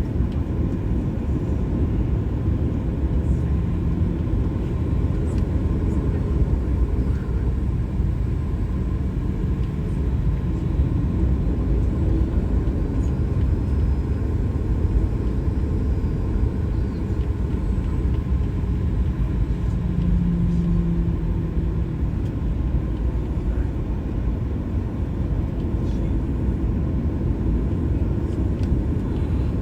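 Steady engine and airframe rumble of a Boeing 737-800 heard from inside the passenger cabin.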